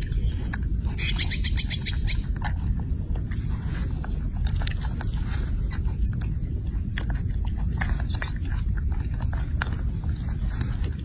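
Wind buffeting the microphone as a steady low rumble, with scattered wet clicks and smacks of a baby macaque handling and chewing grapes, including a quick run of ticks about a second in.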